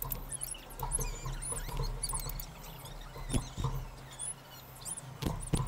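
A pair of caged sirtu birds, a kind of iora, giving rapid, high, squeaky chirps and short gliding calls, with a few sharp knocks about three seconds in and twice near the end. A steady low hum runs underneath.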